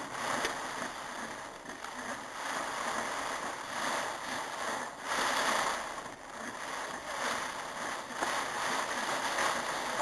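Heavy rain pouring down in a storm, a steady hiss that swells and eases every second or two.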